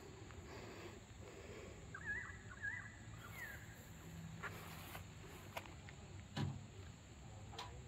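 Quiet outdoor ambience with a few faint, short wavering chirps, as from a distant bird, between about two and three and a half seconds in, and a few soft clicks with one louder thump about six and a half seconds in.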